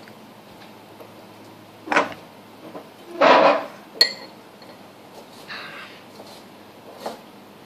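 A metal fork clinking and tapping against a ceramic bowl and a wooden tabletop during a meal: a few separate knocks, the sharpest about four seconds in with a brief ringing clink. Just after three seconds comes a short, louder noise, the loudest sound here.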